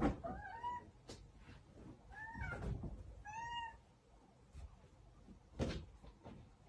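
A cat meowing three times in the first few seconds, short meows that rise and fall in pitch, with a few sharp knocks, the loudest about two-thirds of the way through.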